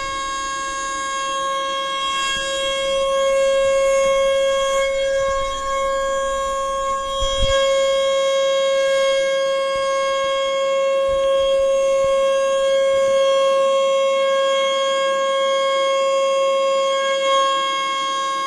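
ASC T-121 outdoor warning siren sounding a steady alert tone on its test: one held pitch with strong overtones, swelling and easing a little in loudness.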